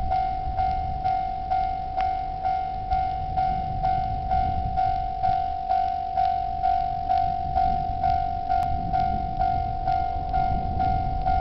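Japanese railway level crossing warning bell ringing in a steady, even rhythm of about two strikes a second at one fixed pitch: the crossing's alarm signalling that a train is approaching.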